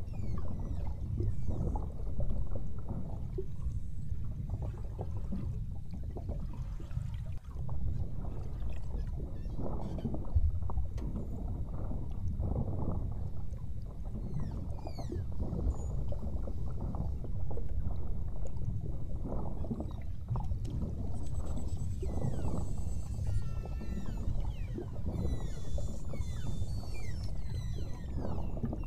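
Beluga whales heard underwater: many short whistles and chirps, a lot of them sliding downward, over a steady low rush of water and boat noise. The calls grow busiest near the end.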